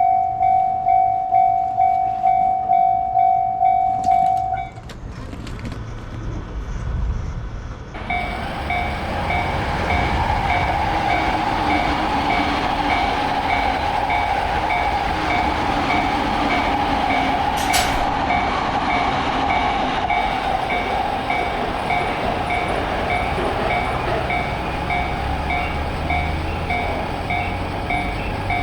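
Japanese level-crossing warning bell ringing in quick, even pulses. It stops about five seconds in and starts again about eight seconds in, now over the steady rush of a train running past.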